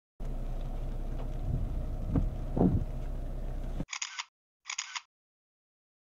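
Two camera shutter clicks, about a second apart near the end, each a short bright double snap. Before them a steady low hum with two louder thumps a little past halfway, which cuts off abruptly.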